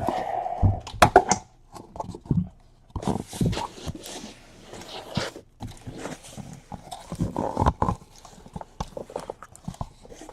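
Trading card boxes and their plastic wrapping being handled: irregular crinkling, rustling and light cardboard taps.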